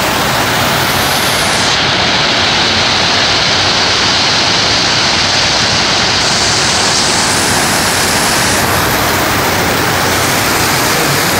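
Floodwater rushing down a street in a loud, steady torrent.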